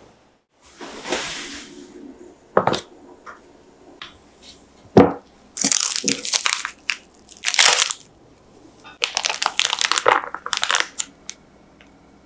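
Plastic piping bag crinkling and rustling in the hands as it is handled around the frozen ice cream, in several bursts, with a couple of sharp knocks in between.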